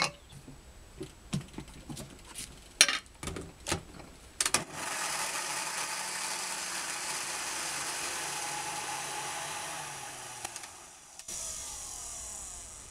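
Clicks and knocks as the blender jar is handled and set on its base, then a countertop blender runs steadily for about six seconds, puréeing soaked cashews with strawberries, before slowing and stopping near the end.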